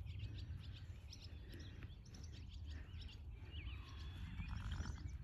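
Small birds chirping and twittering, many short quick calls, over a steady low rumble.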